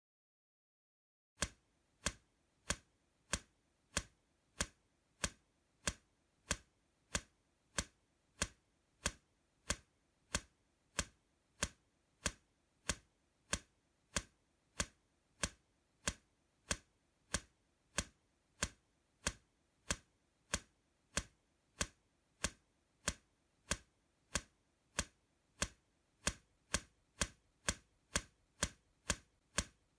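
Clock-like ticking sound effect, used as a challenge timer: one sharp tick about every two-thirds of a second with dead silence between ticks, starting about a second and a half in and coming a little faster near the end.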